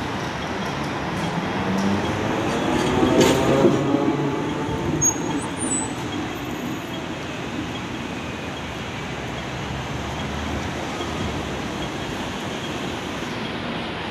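Double-decker electric street trams running along their tracks amid steady city street noise. About three seconds in, the sound swells as a vehicle passes, with one sharp clack.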